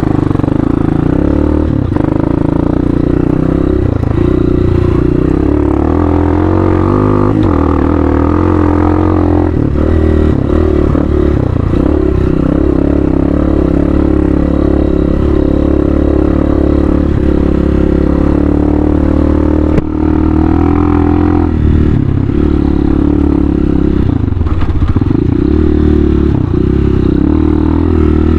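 Hawk 250 dual-sport motorcycle's single-cylinder engine running under way on a dirt trail, its pitch rising and falling several times as the throttle is opened and closed.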